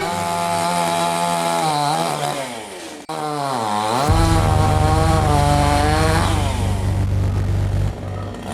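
A chainsaw running fast, its pitch falling away almost to idle about two to three seconds in, then revving sharply back up at around four seconds and holding high before easing off near the end.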